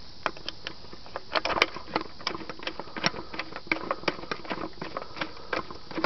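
Irregular small metallic clicks and clinks, several a second, from coins and the metal coin mechanism of a vintage Sun gumball machine being handled.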